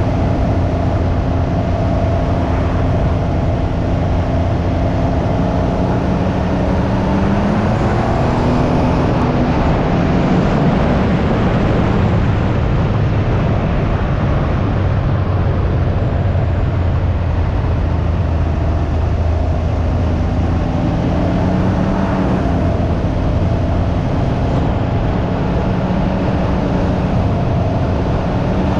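Can-Am Ryker 900's three-cylinder Rotax engine running under way, with wind rushing over the microphone. The engine note rises and falls a few times as speed changes, climbing about eight seconds in and again about twenty seconds in.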